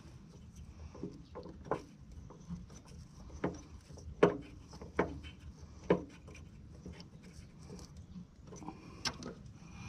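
Scattered sharp metallic clinks of a socket wrench working the fasteners of a truck's air-suspension leveling valve, about half a dozen, roughly a second apart, each ringing briefly.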